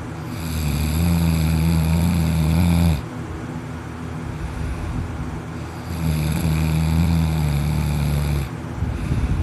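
A person snoring heavily in deep sleep: two long, loud snores of about two and a half seconds each, with a quieter stretch of breathing between them.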